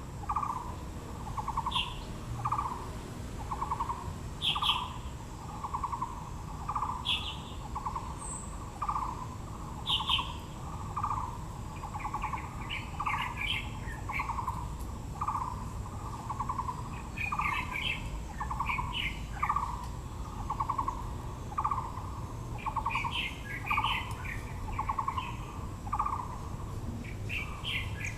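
Birdsong: one bird repeats a short trilled note over and over at an even pace, about one and a half notes a second, while other birds add scattered higher chirps and bursts of twittering.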